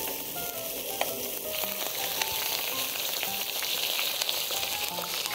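Beef intestines (gopchang and daechang) sizzling and spitting fat as they grill, with a few sharp pops; the sizzle grows louder about one and a half seconds in.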